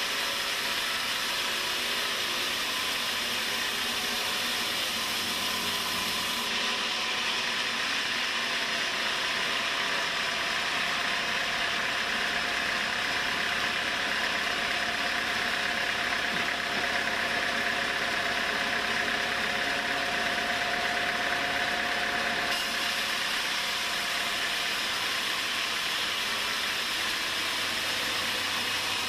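Sawmill machinery running steadily under power; for a long stretch in the middle the sound changes, with a steady tone standing out and the hiss above it dropping away.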